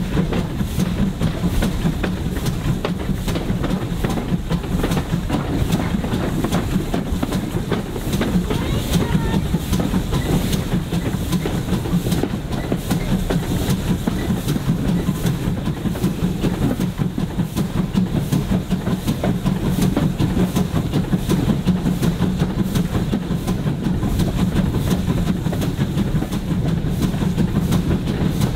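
Railway carriage running along the track, a steady rumble of wheels on rail with regular clicks, heard from on board a train hauled by an ex-GWR 42xx steam tank engine.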